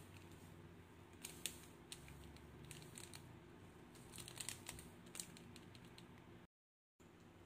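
Faint crinkling and clicking of a foil-lined dry yeast sachet being shaken and tapped as it is emptied into a bowl of water. The sound cuts out completely for about half a second near the end.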